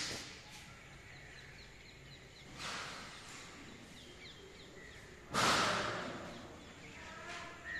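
Two brief rushes of noise on the microphone, about two and a half and five and a half seconds in, the second the loudest. Faint bird chirps sound between them, and a crow starts cawing near the end.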